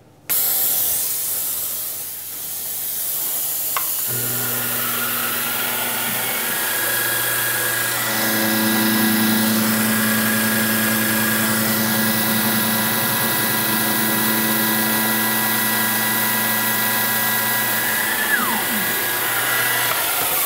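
Milling machine cutting a flat with a 3/8-inch powdered-metal roughing end mill, under a hissing air-mist coolant spray. The hiss starts suddenly at the outset. Steady cutting tones come in about four seconds in, grow stronger around eight seconds, and stop just before the end while the hiss carries on.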